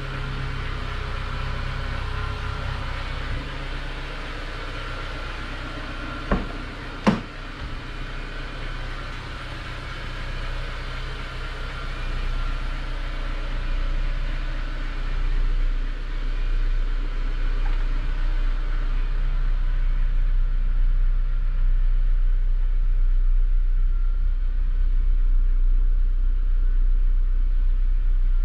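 A Honda Civic's four-cylinder engine idling steadily, a low even hum. Two sharp clicks come about six and seven seconds in.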